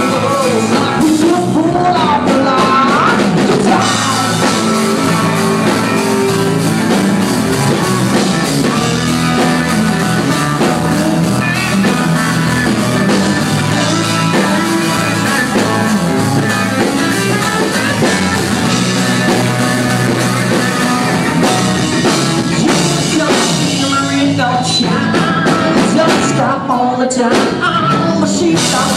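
Live rock band playing loudly: drum kit, electric guitars and bass, with a male lead vocal singing at times.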